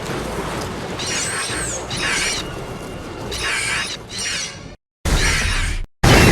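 Mothra larva sound effect: a run of short, high chirping squeals over a rumbling, noisy bed. It is cut into abrupt segments with sudden silences near the end.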